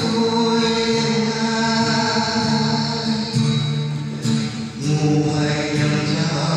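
A man singing amplified through a microphone, with guitar accompaniment, in long held notes.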